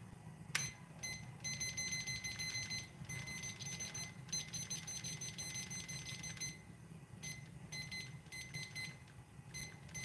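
A high-pitched alarm-like beeping tone that keeps switching on and off in irregular stretches of one to two seconds, over a steady low hum.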